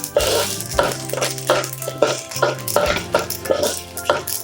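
A spatula stirring and scraping sesame seeds as they dry-roast in a pan, in regular strokes about three a second.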